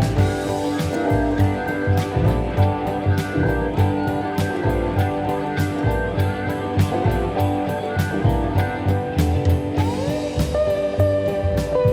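Background music: a guitar-led band track with a steady drum beat, with sliding guitar notes near the end.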